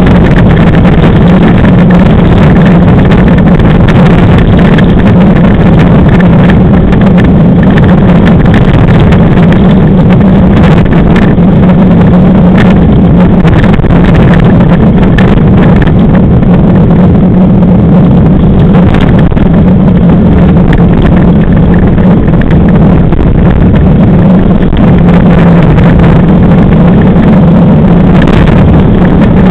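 Class 5 land yacht rolling fast over hard flat ground, its wheels and frame giving a loud, steady rumble with a constant low hum and frequent small clicks, mixed with wind buffeting the microphone.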